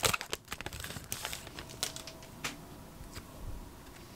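Foil trading-card pack wrapper crinkling as it is pulled open, loudest in the first half-second. It then thins to a few faint scattered crinkles and ticks as the cards are handled.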